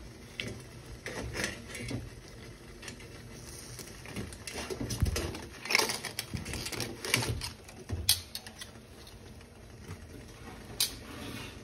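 Metal tongs clinking and knocking against a stainless steel stockpot as live Dungeness crabs are lowered into the boiling water, with splashing and irregular sharp clicks, busiest about five to eight seconds in.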